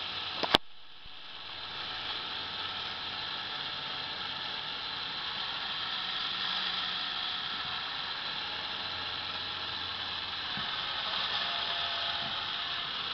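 LEGO Technic gyroscope running: two Power Functions XL motors driving a plastic gear train and flywheel, giving a steady mechanical whir that builds over the first couple of seconds and then holds. A sharp click about half a second in.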